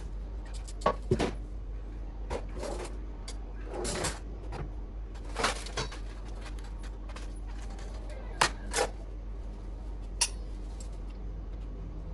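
Knife cutting and scraping a raw sweet potato, with scattered knocks and clinks on metal as peelings and utensils meet the pan and steel sink. The knocks and short scrapes are irregular, several seconds apart, over a steady low hum.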